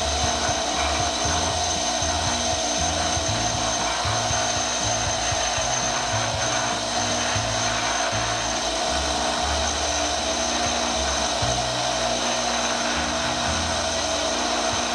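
Bench grinder running with an abrasive dressing brick held against the grinding wheel: a steady motor whine over a gritty grinding hiss, with an uneven low rumble as the brick tracks across the wheel face. The wheel is being dressed and trued, breaking down its surface to expose sharp grains.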